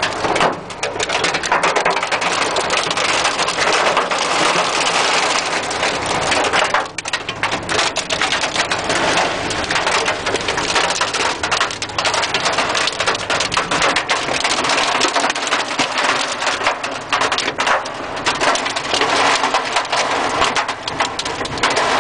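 Heavy tropical rain and hail pelting the roof and windows of a car, heard from inside the cabin as a dense, loud drumming of countless impacts. It eases briefly about seven seconds in.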